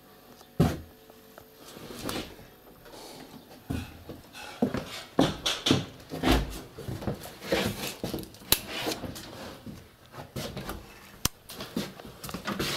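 A door latch clicks sharply as the door opens, then a quick run of knocks, clicks and rustling as someone walks through a hallway.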